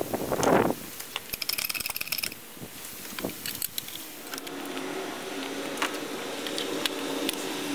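Rustling and light metal clicks and clinks of gloved hands working on parts on top of an engine. A faint steady hum comes in about four seconds in, with a few more scattered clicks.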